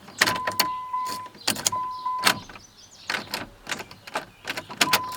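Dodge Ram Cummins diesel failing to start on dead batteries: rapid irregular clicking, with a steady high beep cutting in and out about three times.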